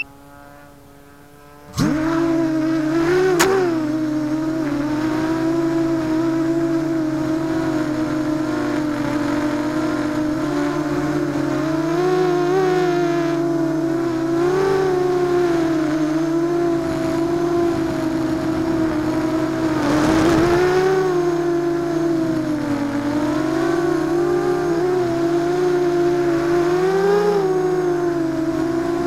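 ZMR250 racing quadcopter's four brushless motors and propellers, picked up by its onboard keychain camera. They spool up suddenly about two seconds in at takeoff, then keep up a loud buzzing whine that rises and falls in pitch with the throttle as it flies. A sharp click comes just after the spool-up.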